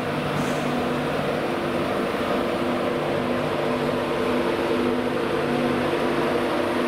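A train's engines and equipment running with a steady hum: several steady tones over a constant noisy rumble.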